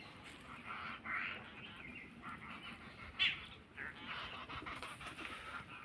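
Birds calling in the forest: a scatter of short chirps and calls, with one louder, sharp call about three seconds in.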